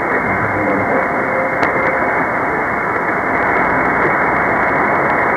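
Steady, muffled hiss and static from a JRC NRD-545 shortwave receiver tuned to a weak AM signal on 4755 kHz, with no clear programme coming through. One brief click about one and a half seconds in.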